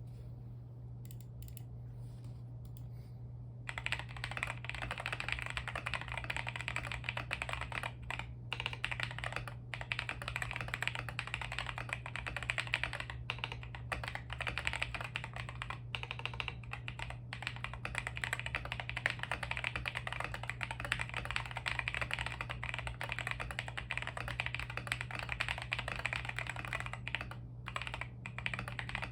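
Continuous fast typing on a MonsGeek 75 mechanical keyboard with MMD Holy Panda tactile switches lubed with Krytox 205g0, XDA PBT keycaps and a tape mod. Dense key clacks start about four seconds in, with a few brief pauses, over a steady low hum.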